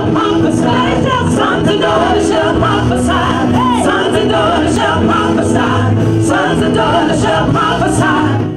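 Gospel music with a choir singing, fading out near the end.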